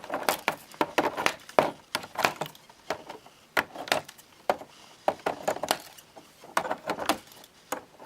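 Hands working a boxed action figure out of its plastic packaging: a steady run of irregular plastic clicks, crinkles and rattles.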